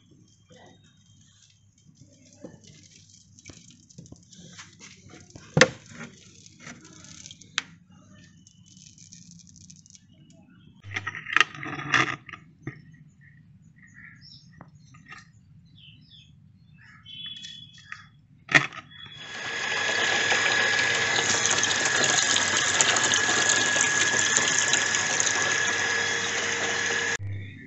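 Water pouring steadily into a plastic bucket for several seconds, starting about two-thirds of the way in and cutting off abruptly near the end. Before it come a few scattered knocks and small splashes.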